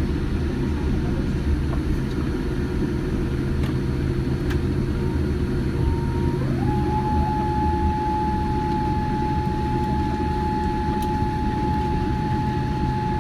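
Boeing 787-9 Dreamliner cabin noise: a steady low rumble with a thin whine that glides up in pitch about six and a half seconds in and then holds at the higher pitch.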